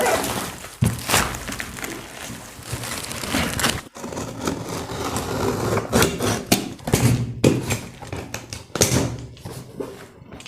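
Cardboard carton being pulled and torn open, with rustling, scraping and repeated thunks as the boxed iron tool box is handled.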